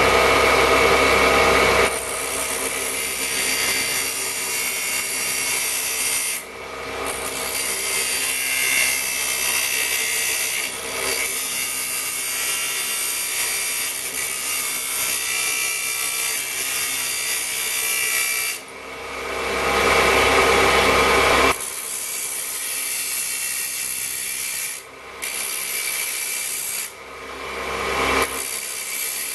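Bench friction-disc cut-off saw spinning at speed while a short piece of metal tubing is hand-fed into the disc, a steady grinding hiss of the disc cutting through the metal. The sound dips briefly several times as the piece is eased off and fed in again.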